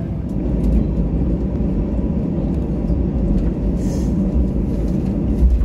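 Cabin noise inside an Airbus A320-200 airliner: a loud, uneven low rumble that cuts off abruptly at the end.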